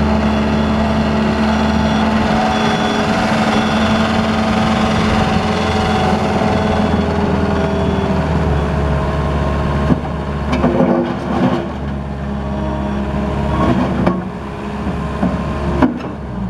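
JCB 190T skid steer's diesel engine running steadily for about ten seconds. After that its note wavers and dips, with several sharp knocks or clunks.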